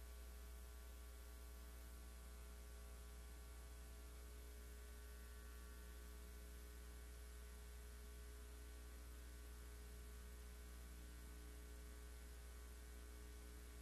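Near silence apart from a steady low electrical hum with a faint buzz of overtones and light hiss.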